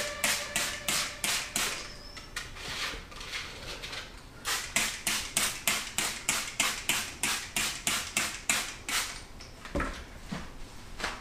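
Trigger spray bottle misting a houseplant's leaves: a quick run of short hissing spritzes, about three a second. The spritzes thin out for a couple of seconds after the start, then pick up again, and a soft knock comes near the end.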